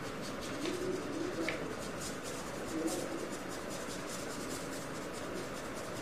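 Paintbrush dabbing and rubbing on paper in short, scratchy strokes. A bird coos low twice, about a second in and about three seconds in.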